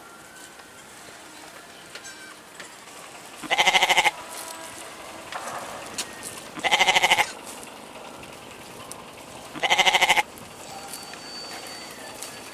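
Goat bleating three times, a few seconds apart, each call about half a second long and wavering.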